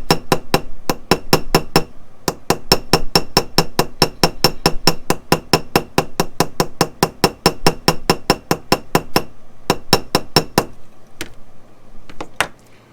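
Ball peen end of a jeweler's hammer tapping lightly and rapidly on the domed head of a solid copper rivet, about five or six ringing taps a second, peening a faceted, hammered texture into the dome. The tapping stops about eleven seconds in, after a few last scattered taps.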